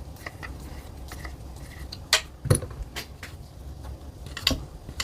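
A few sharp metallic clicks and knocks, the loudest about halfway through, as small air rifle parts and a hand tool are handled while the valve is being worked out.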